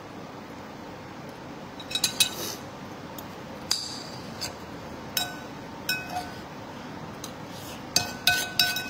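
Eating utensils clicking and scraping against a ceramic rooster-pattern bowl, each tap leaving a short ring. There are scattered taps at first, then a quicker run of clinks near the end.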